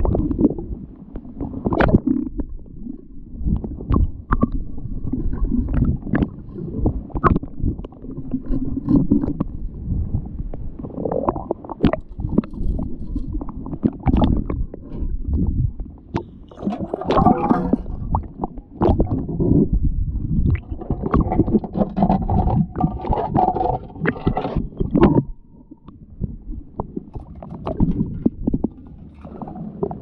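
Muffled water sloshing and gurgling around an action camera held partly under water, with scattered knocks and clicks.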